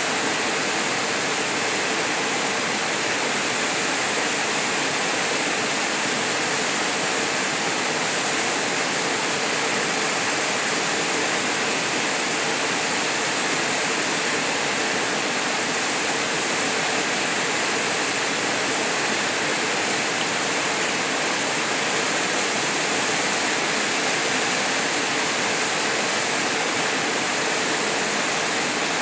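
Steady rush of a small waterfall pouring into a river pool, an even hiss of falling water that does not change.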